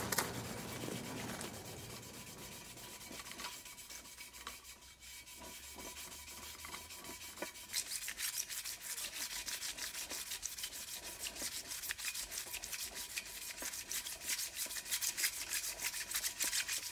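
Wet-or-dry sandpaper being rubbed by hand along the aluminium lip of a BBS Style 5 wheel in quick, even back-and-forth strokes: wet sanding of the wheel's lip. The strokes are faint at first and grow louder and quicker about halfway through.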